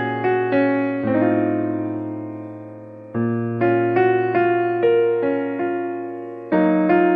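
Solo piano background music: sustained chords struck every half second or so, fading between strikes, with a pause of a beat a little before halfway.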